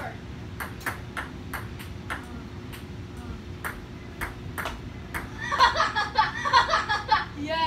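A ping-pong ball clicking as it bounces, about a dozen sharp, irregularly spaced taps. Loud voices break out about five and a half seconds in.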